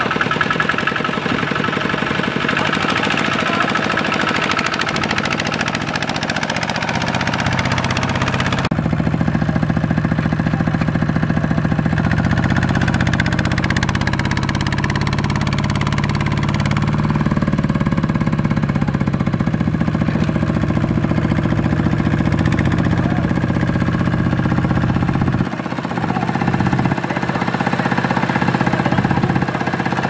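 Two-wheel walking tractor's single-cylinder diesel engine running steadily while pulling a loaded cart. The sound changes abruptly about 9 seconds in and again near 26 seconds, as one clip cuts to the next.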